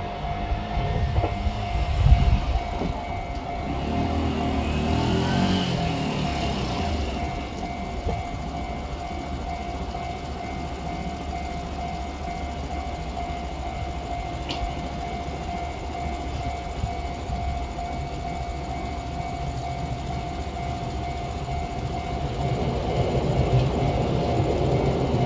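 Freight train hauled by two EF64 electric locomotives passing at a level crossing, its wheels and wagons rumbling steadily on the rails and growing louder near the end. A level-crossing warning bell rings steadily throughout. A locomotive horn sounds briefly about four to six seconds in.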